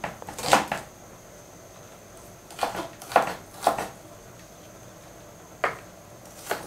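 Kitchen knife chopping onion on a wooden cutting board: about eight separate knocks, unevenly spaced, with pauses of a second or two between some of them.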